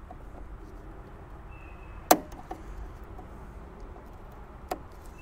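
Two sharp clicks about two and a half seconds apart, the first the louder, as snap ring pliers work a snap ring on the lawn mower's hydrostatic transmission shaft.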